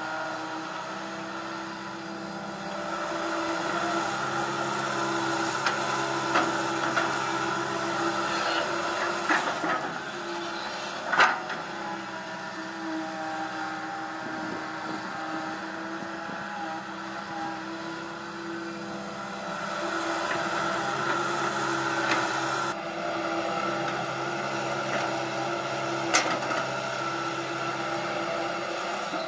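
Komatsu PC160 hydraulic excavator digging: its diesel engine runs steadily and swells louder twice as it works the arm and bucket. A few sharp knocks come from the machine, the loudest about eleven seconds in.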